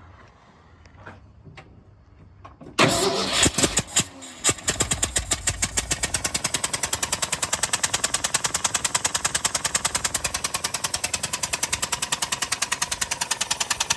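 1969 Ford F350's FE 360 V8 is cranked cold on choke about three seconds in. It catches about a second and a half later and runs with a loud, fast, even popping blast from a leak at the cylinder head. The owners suspect a blown head gasket, a failed exhaust manifold gasket or a cracked head; one calls it much more violent than an exhaust leak.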